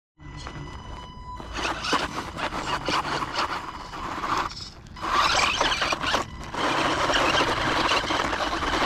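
Axial Yeti Jr Can-Am 1/18 RC car's electric motor and gears whining as its tyres scrabble and spin on loose dirt, in bursts that dip briefly twice around the middle.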